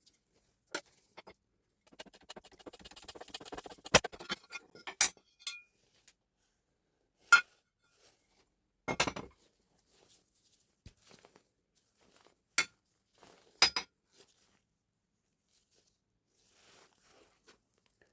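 Metal parts of a Hilti TE 905 breaker being handled and set down on a workbench during repair: sharp clinks and knocks every second or two, with a short stretch of light rattling near the start.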